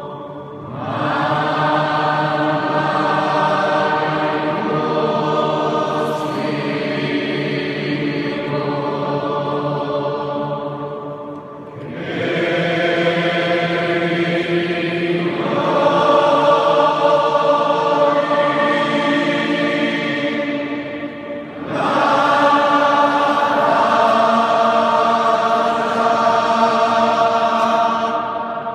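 Many voices singing a hymn together, chant-like and sustained, in three long phrases with short breaks between, echoing in a large church.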